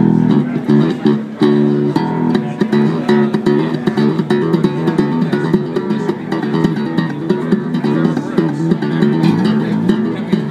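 24-string Prat extended-range bass guitar played through an amplifier: a quick, continuous flow of plucked notes, with several notes ringing together.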